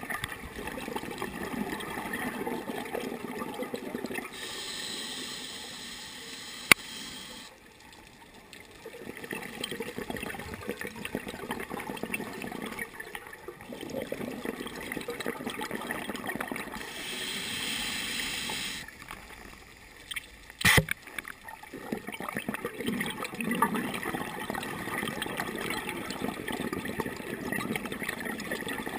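Underwater sound of scuba breathing through a regulator: gurgling exhaled bubbles, with a hissing inhale twice, about twelve seconds apart. Two sharp clicks, about seven and twenty-one seconds in.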